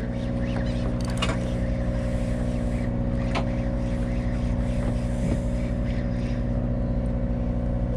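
A fishing boat's engine running steadily, an even low hum with no change in speed, with a few faint clicks over it.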